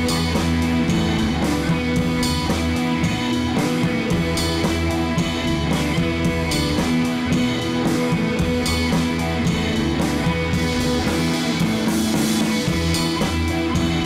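Background instrumental rock music with guitar and drums and a steady beat.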